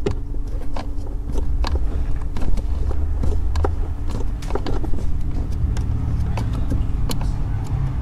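Small irregular metallic clicks and scrapes of a socket being turned by hand, spinning out the brake light switch's retaining bolt from the brake pedal bracket, over a steady low hum.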